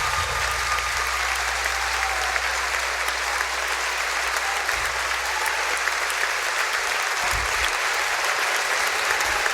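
Concert audience applauding steadily after a song ends, a dense even clapping that holds its level throughout. A few low thumps come about seven seconds in.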